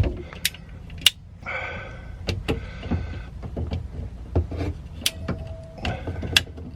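Ratcheting pipe cutter working through a pipe: irregular clicks and knocks from the ratchet and handle, with a squeaky grinding stretch from about one and a half to three seconds in and a shorter one near the end.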